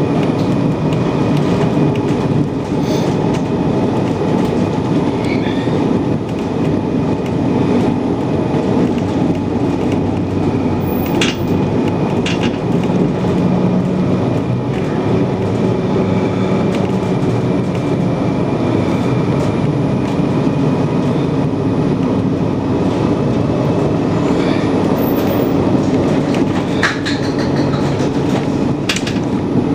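Steady running noise heard from inside a moving tram, with a low motor hum and a few sharp clicks from the wheels on the rails.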